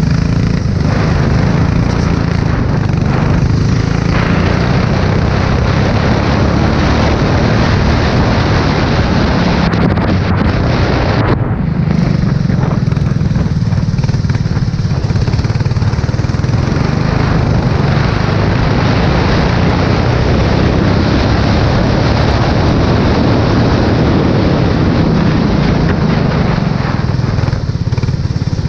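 Formula 4 race car engine running hard and steady at speed on a wet track, with a brief dip about eleven seconds in.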